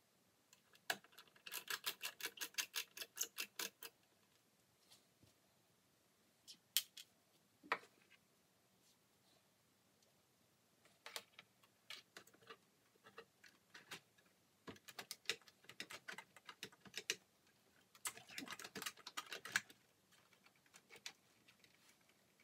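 Screws being undone with a small screwdriver on a cassette deck's front panel: quick runs of light clicking, several clicks a second, in three bursts, with a few single knocks as the panel is handled.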